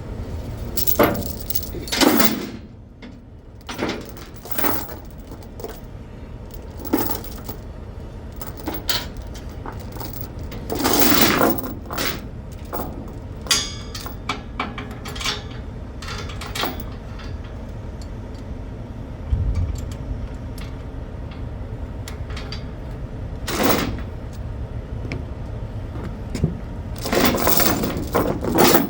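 Heavy tie-down chains and their hooks clanking and jangling against metal as a load is chained down, a dozen or so irregular metallic hits and rattles over a steady low rumble.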